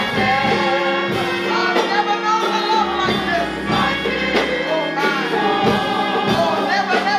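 Gospel choir singing with live band accompaniment over a steady beat.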